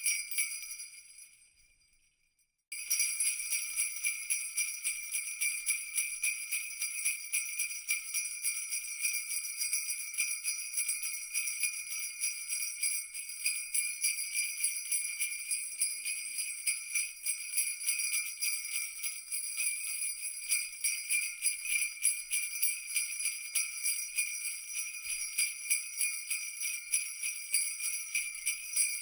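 Jingle bells shaken continuously in a fast, even jingle. The sound fades out just after the start, drops out briefly, and cuts back in abruptly at full level about three seconds in.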